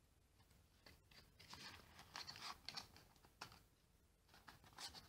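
Faint rustling and scraping of a cardboard deck box being opened and a deck of cards slid out of it, in short spurts with a few light clicks from about a second in.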